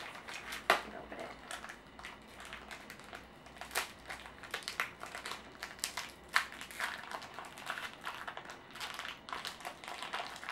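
Small sample packet being crinkled and torn open by hand: a run of irregular crackles and sharp snaps, the loudest a little under a second in.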